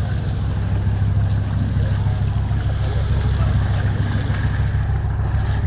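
Fishing boat's engine running with a steady low hum, over water rushing and churning along the hull.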